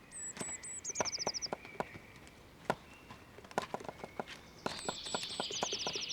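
Black woodpecker chiselling into wood, its beak striking in irregular, uneven taps. A small songbird sings a short high phrase twice, a few notes running into a fast falling trill.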